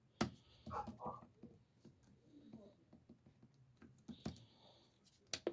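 Scattered clicks and knocks of a weather radio being handled and set to a channel: a sharp click just after the start, a few lighter taps, and two clicks close together near the end.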